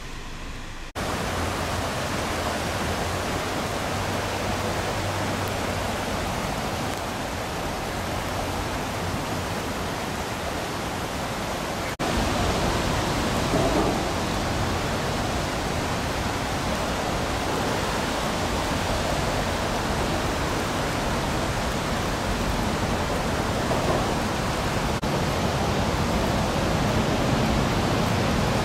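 Heavy rain falling steadily, a dense even hiss, jumping abruptly louder about a second in and again about twelve seconds in.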